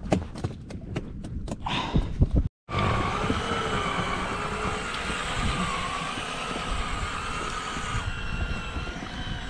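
Sharp clicks and knocks of fishing tackle being handled for the first couple of seconds. After a cut comes a steady rush of wind and choppy water around an inflatable boat, with a faint wavering whine that stops near the end.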